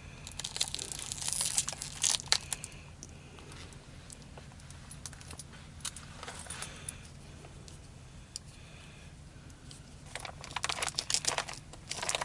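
Plastic crinkling and rustling in bursts as RC truck wheels and tires are handled, with a low steady hum underneath.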